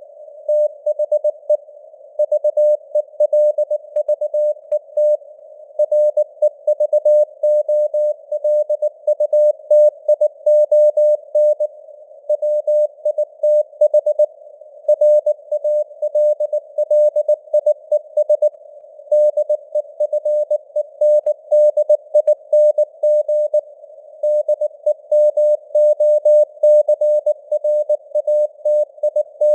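Morse code (CW) sent at 19 words per minute: a single mid-pitched tone keyed on and off in dots and dashes, set in a narrow band of simulated radio hiss.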